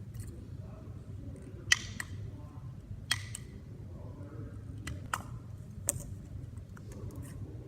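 Slime being squeezed and worked by hand, with several sharp clicking pops, the loudest a little under two seconds in.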